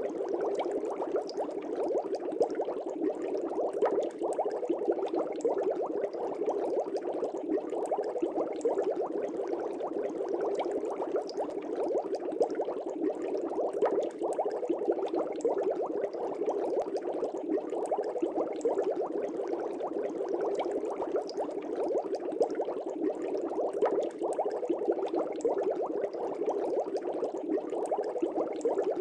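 Aquarium air bubbles streaming up through the water and popping, a steady dense bubbling with many small irregular pops.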